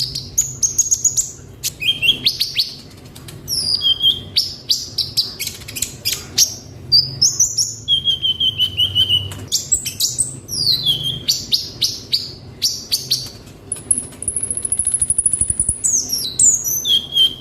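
Kolibri ninja sunbird singing busily: rapid runs of high chirps, trills and quick rising and falling whistles, with one long, thin, very high note about three-quarters of the way through.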